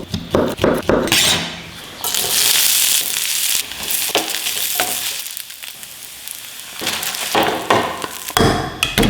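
Food sizzling and frying in a pan, the hiss starting suddenly about two seconds in and dying down. Sharp knocks and clinks of cooking utensils come at the start and again near the end.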